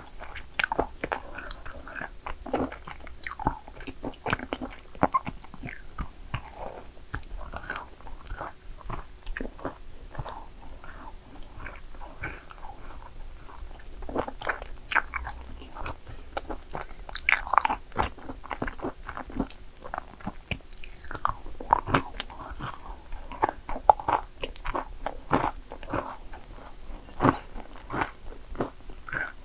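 A person biting and chewing yakgwa cookies, with crisp crunches and irregular sharp clicks of chewing throughout.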